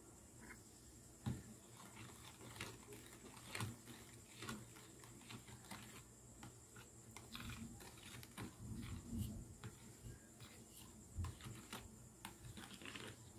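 Metal spoon stirring sugar into a mango gulaman mixture in a plastic tub, clicking and scraping against the tub in faint, irregular taps.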